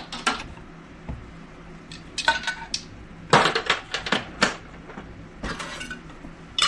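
A metal kitchen utensil tapping and clinking against a pan in several short groups of strokes, some leaving a brief ringing tone.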